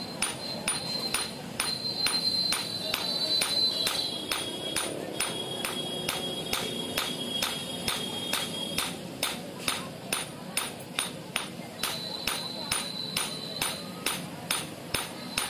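Hand hammer forging a hot sickle blade on a steel anvil, striking in a steady rhythm of about three blows a second, each blow a sharp metallic clink.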